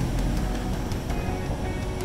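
Large street snowblower running under load while it throws snow from its chute: a steady, low engine drone.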